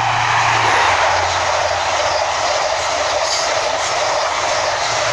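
An LNER InterCity 125 (HST) passing through the station at speed with a loud, steady rushing roar of wheels and air. Underneath is a low diesel power-car hum that drops in pitch about a second in as the power car goes by.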